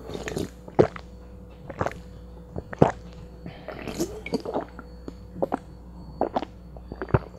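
A person gulping iced tea from a can: a run of short, wet swallowing gulps at irregular spacing.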